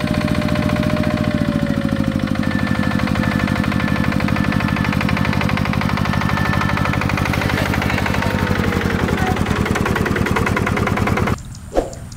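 Single-cylinder diesel engine of a two-wheel hand tractor pulling a trailer, running steadily with a fast, even firing beat. Near the end the engine sound stops abruptly, followed by one short sharp knock.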